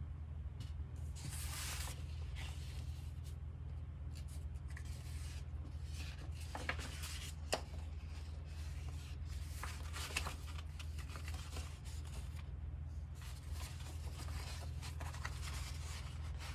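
Large paper poster pages of a softcover book being turned and unfolded by hand: irregular rustling and sliding of the sheets with a few crisp clicks, over a steady low hum.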